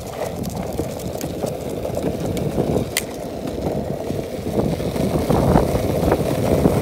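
Steady rumbling noise of moving fast along an asphalt street, with wind on the microphone and scattered small clicks, slowly growing louder.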